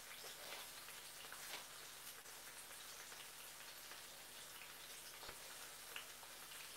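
Sea bass frying in a foil-covered pan, heard as a faint, steady sizzle with scattered small crackles.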